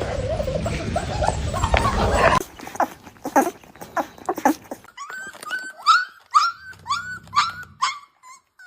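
Young puppies whimpering with thin, high squeaks: first over a steady hum, then, after a sudden change, soft rustling and clicks followed by a run of about six short rising-and-falling squeaks, about two a second.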